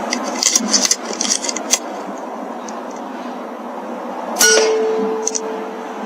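A few light clicks, then about four and a half seconds in a single sharp air rifle shot from an RTI Prophet P3 sub-12 ft-lb air rifle, followed by a clear ringing tone that fades over about a second and a half.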